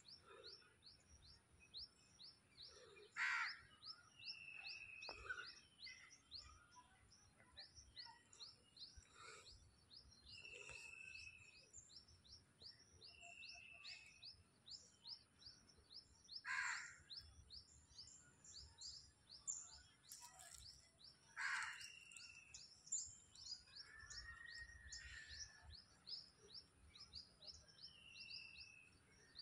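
Faint birdsong: a steady run of short, high chirps at about three a second throughout, with a short clear whistled note every few seconds. Three louder, harsher calls cut in, about three seconds in, near the middle and a few seconds later.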